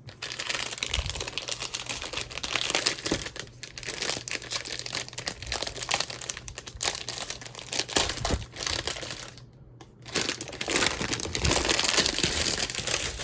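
Plastic wrapping crinkling and rustling as it is pulled off a mechanical keyboard, with dense crackles throughout and a short pause about two-thirds of the way through.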